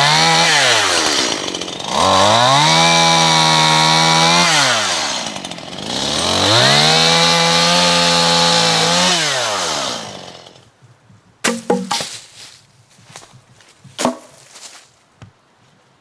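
Two-stroke chainsaw bucking a downed locust log into fence posts. It is revved to full throttle three times, each burst held for a couple of seconds before it drops back, and the engine dies away near ten seconds. A few sharp knocks follow near the end.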